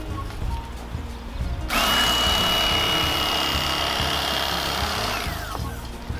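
Bubba Blade corded electric fillet knife switched on about two seconds in, its motor running with a steady high whine as the blade cuts a perch fillet, then winding down to a stop near the end. Background music plays underneath.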